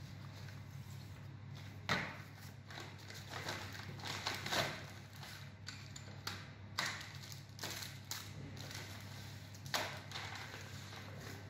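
Packaging and stationery handled on a wooden table: paper and plastic rustling, with several sharp taps and knocks as packets of markers and pencils are set down. A steady low hum runs underneath.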